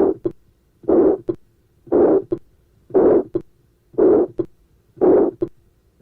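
Heartbeat heard through a stethoscope over the aortic area: a medium-pitched, harsh crescendo-decrescendo ejection systolic murmur of aortic stenosis, each one ending just before a short, crisp second heart sound (A2), which is well preserved. Six beats, about one a second.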